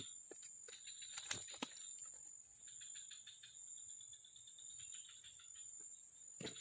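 Outdoor insect chorus: a steady high-pitched whine with a pulsing trill beneath it, and two light clicks about a second and a half in.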